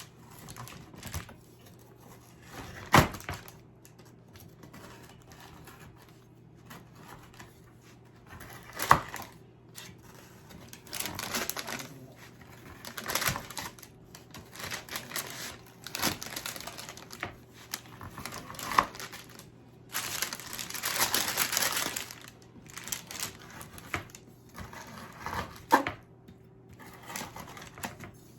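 Sharp knocks and clicks on a kitchen counter, with stretches of paper crinkling, the longest about two-thirds of the way through: a chilled slab of chocolate-marshmallow candy on parchment paper being handled and broken up.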